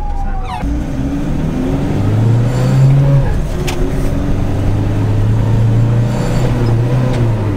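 A van's engine accelerating away from a standstill. It climbs in pitch, drops with a gear change about three seconds in, then pulls steadily upward again through the next gear.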